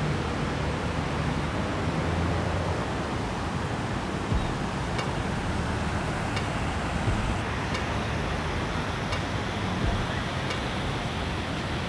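Shallow, rocky river running over stones: a steady rush of water.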